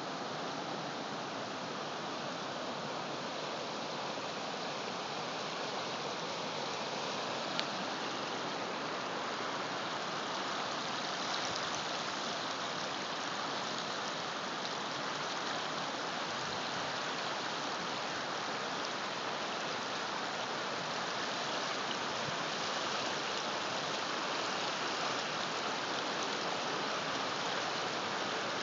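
Fast-moving floodwater rushing steadily across a flooded road, with one brief click about a quarter of the way through.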